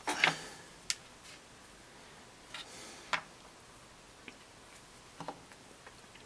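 Small handling noises: a few scattered clicks and short rustles as hands pick up a paper reference photo and work a bit of modelling clay on a wooden board. The loudest comes right at the start, with further single clicks about a second in, around three seconds in and just past five seconds.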